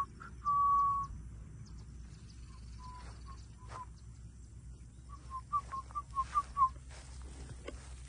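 Whistled notes at one pitch: a held note about half a second in, a few short notes in the middle, then a quick run of about eight short notes near the end.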